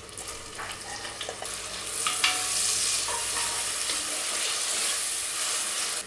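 Chopped onion is pushed off a wooden board into a pot of hot butter and oil, with a few light scrapes and knocks. About two seconds in it sizzles louder as the onion fries and is stirred with a wooden spoon. The sizzle cuts off suddenly at the end.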